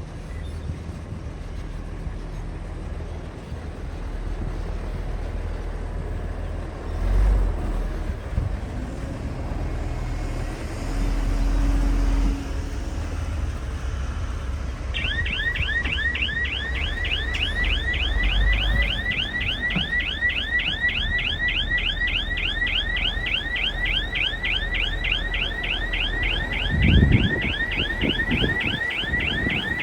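Excavator diesel engine running, getting louder a few times as it works. About halfway through, a rapid warbling warning alarm starts, about four chirps a second, and keeps going.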